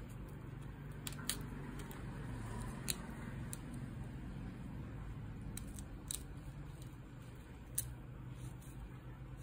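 Several scattered sharp clicks and taps of a disassembled Oppo A3s smartphone's plastic and metal frame and parts being handled, over a steady low hum.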